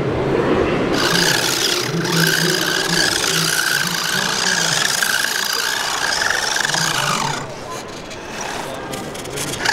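Radio-controlled model car driving, its electric motor giving a steady high whine that starts about a second in, sags and fades out after about seven seconds.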